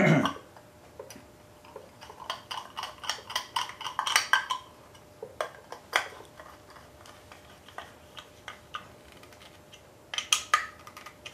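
Small metallic clicks and taps of fasteners and hand tools on a small engine block as a wire clamp is tightened down: a quick run of ticks about two to four seconds in, scattered single clicks after, and a louder clatter near the end.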